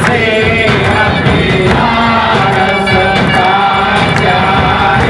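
Group of devotees singing a Hindu aarti together, with percussion keeping time.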